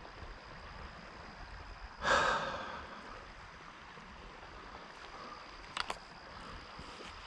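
A man's sharp, frustrated sigh about two seconds in, over the steady hiss of flowing river water. A couple of short clicks come near the end.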